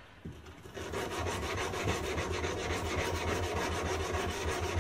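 Abrasive paper rubbed quickly back and forth against a steel knife blade in hand sanding, a rhythmic scratchy rasp that starts about a second in. This flat sanding removes the marks left by the grinding wheel.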